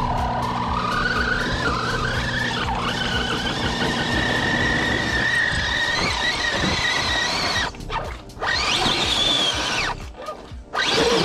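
Brushless motor and gears of an Axial SCX-10 scale RC crawler whining under throttle as it crawls through mud and rocks, the pitch rising and then holding steady. The whine cuts out briefly about eight seconds in and again near the end as the throttle is let off.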